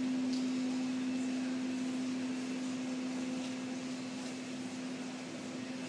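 Steady mechanical hum inside a Dulles Airport mobile lounge, with one constant low tone over an even rushing noise: the vehicle's machinery and ventilation running.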